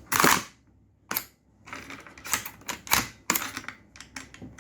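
Sharp mechanical clicks and clacks of a KWA F90 gas blowback airsoft rifle being handled: the charging handle and bolt worked and locked back. A loud clack comes at the start, another about a second in, then a quick run of clicks in the second half.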